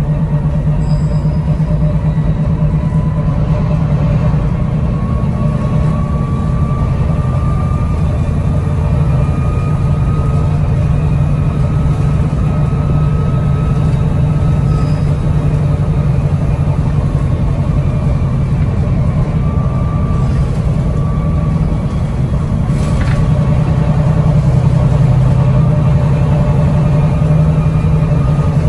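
Double-decker bus heard from inside on its upper deck: a steady low engine drone with a faint whine that slowly rises and falls in pitch. The drone grows a little louder near the end, with a single click just before.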